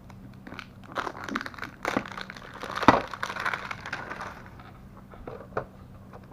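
Toy packaging being handled and unwrapped: crinkling and rustling with many sharp crackles, busiest in the middle, with one loudest crack about three seconds in.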